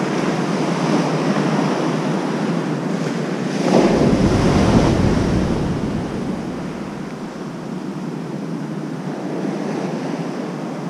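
Ocean surf washing steadily, with wind rushing across the microphone; the rush swells louder and deeper for a couple of seconds about four seconds in.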